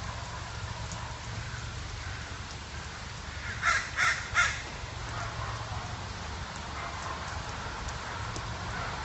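A crow cawing three times in quick succession, about four seconds in, over a steady background hiss and low hum.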